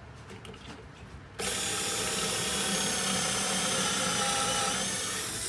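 Cordless drill boring a pocket hole with a Kreg stepped bit through a pocket-hole jig into a 1x board: a steady motor whine with the bit cutting wood, starting about a second and a half in and stopping just before the end. A few light handling clicks come before it.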